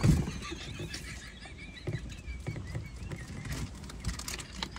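Stifled, muffled laughter from a person trying not to laugh, coming in short low pulses.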